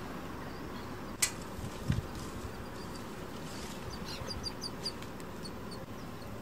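Outdoor ambience with a steady hiss, a sharp click about a second in and a low thump just after. From about four seconds in, a small bird chirps quickly several times, then more sparsely.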